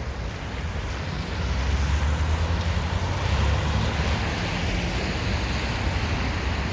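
Wind buffeting the microphone during a snowstorm: a steady, rumbling rush that grows louder about a second and a half in.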